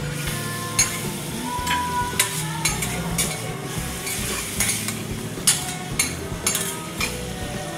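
Metal teppanyaki spatulas clacking and scraping against a steel griddle, about ten sharp clacks at irregular intervals, over the steady sizzle of food frying on the hot plate.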